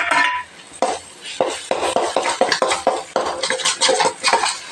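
Metal spatula scraping and clinking against a stainless steel pan while stirring a thick masala paste with coriander leaves, in a string of short, uneven strokes.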